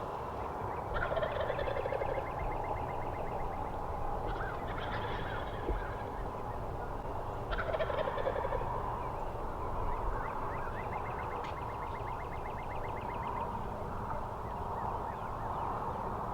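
Wild turkey toms gobbling several times, each gobble a quick rattling burst, with fast trills of ticks in between.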